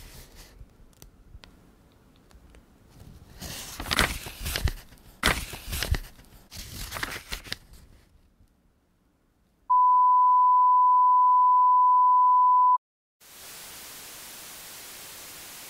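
Dry rustling and scraping as paper and board are handled, in bursts for several seconds. Then a loud, steady 1 kHz test-tone beep for about three seconds that cuts off suddenly, and after a short silence the even hiss of television static.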